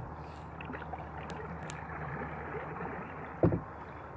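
Steady rush and splash of river water around a canoe, with a single sharp knock about three and a half seconds in.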